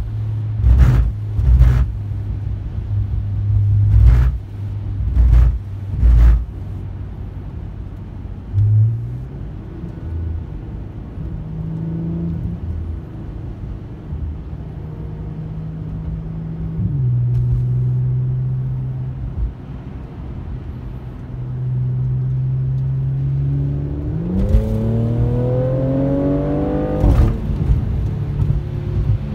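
Mercedes C-Class engine with an AWE Track exhaust, heard from inside the cabin while driving: a steady drone at cruising speed, with a few sharp thumps in the first six seconds. Near the end the car accelerates hard, and the note rises for about three seconds before it drops suddenly at a gear change.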